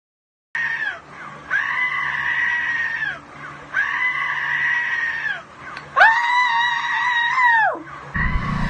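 A recording of a goat screaming, played back through a speaker: long, held, human-like screams, about four of them, each trailing off in a falling pitch, with another starting near the end.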